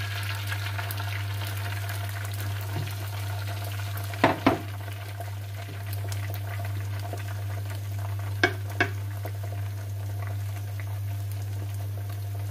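Beaten egg white with chopped tomatoes and spring onions sizzling as it fries on an oiled griddle pan, over a steady low hum. Twice, about four and eight seconds in, a quick pair of sharp knocks.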